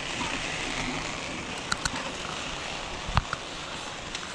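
Steady rushing noise of a chairlift ride, with a few sharp clicks near the middle and one louder knock about three seconds in.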